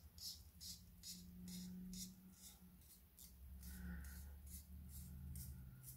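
Very faint, rapid soft ticking, about three ticks a second, of a narrow paper strip being wound tight onto a plastic slotted quilling tool, over a low steady hum.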